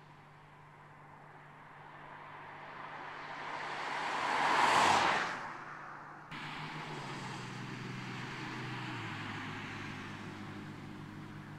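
A BMW M4 Convertible, twin-turbo straight-six, drives past: the engine and tyre noise builds to a peak about five seconds in, then fades. After a sudden cut, the engine is heard running steadily as the car cruises, its note dropping in pitch about nine seconds in.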